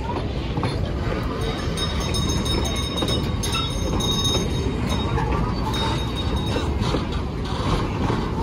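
Puffing Billy's narrow-gauge wooden passenger carriages rolling past at close range: a steady rumble of wheels on rail with a few light clicks.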